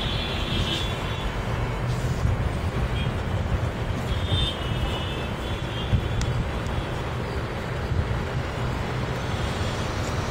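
Steady low background rumble, with faint high-pitched puppy whines heard briefly twice: just after the start and again about four seconds in.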